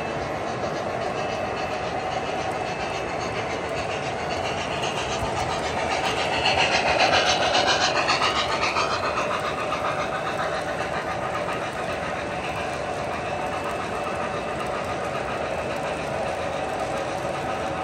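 O-gauge model train running on three-rail track, a steady whir and rumble of wheels and motors with a light rhythmic clatter. The sound swells as the steam locomotive and its tender pass close by, about six to nine seconds in, then settles as the passenger cars roll past.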